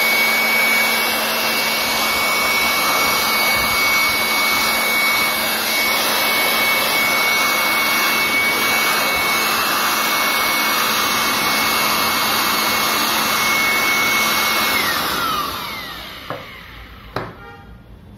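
Handheld electric air blower running at full speed, a steady high whine over rushing air, blowing carbon dust off a computer power supply's circuit board. About 15 seconds in it is switched off and the whine falls in pitch as the motor winds down, followed by a couple of light knocks.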